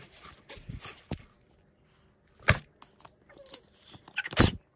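A small plastic toy figurine handled on a colouring book on a wooden table: a few scattered short knocks and rubs, the loudest one near the end.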